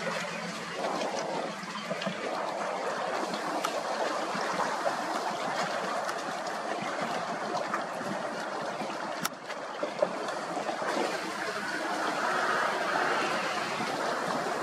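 Shallow water lapping and trickling at the shoreline, a steady wash with a couple of short clicks about two-thirds through.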